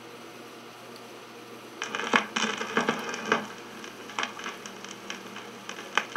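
Steady hiss of an old 16mm film soundtrack. About two seconds in, a run of irregular clicks and crackles starts, followed by scattered single clicks.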